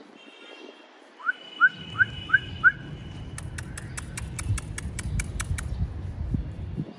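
Parrot giving five quick rising whistled chirps, evenly spaced, followed by a run of about a dozen sharp clicks over a low rumble.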